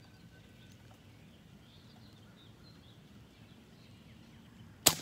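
A single sharp crack of an airsoft sniper rifle firing near the end, over a faint outdoor background with faint bird chirps.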